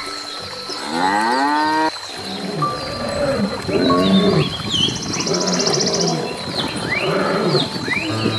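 Animal calls: one long call about a second in, then a run of shorter repeated cries, with bird chirps and a steady high whine behind them.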